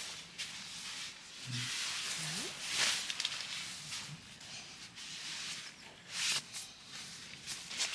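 Rustling and shuffling of fabric in a tent, in short surges, with a dog giving a short low whine that rises in pitch about two seconds in.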